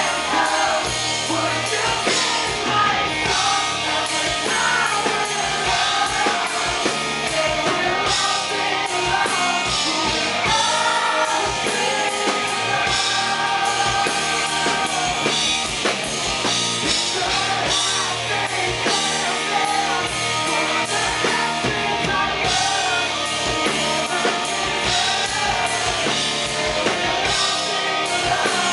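Live rock band playing with drums, with a male lead vocalist singing into a microphone.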